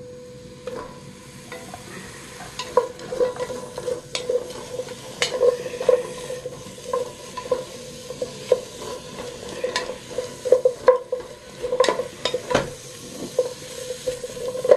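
Beef brisket stir-frying in sesame oil with chili in a pot, sizzling, while a utensil stirs and scrapes it with irregular taps and knocks against the pot. A steady hum runs underneath.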